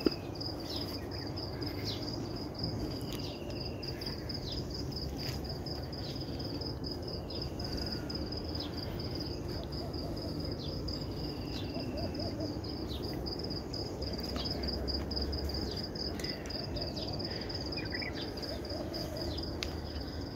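Steady high insect trill, a cricket-like rapid pulsing that never stops, with several short falling bird chirps and a few soft low coos over a low rumble.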